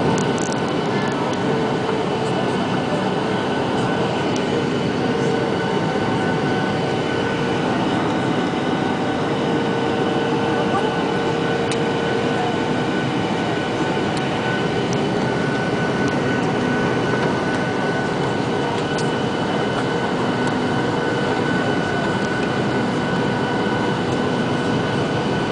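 Steady cabin drone of a Boeing 737's jet engines and rushing airflow during the descent to landing, heard from a seat over the wing, with a few steady whining tones from the engines.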